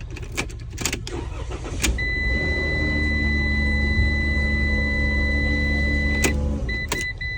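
Dodge Promaster van's ignition: a few clicks of the key, then a steady high electronic chime while the engine starts and runs for about four seconds. It is switched off with a click, followed by a few short beeps.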